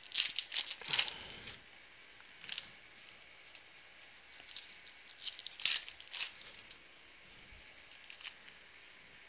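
Foil wrapper of a Panini Prizm football card pack crinkling and being torn open by hand. It comes in short bursts of crackle, most of them in the first second and a half and again around five to six seconds in.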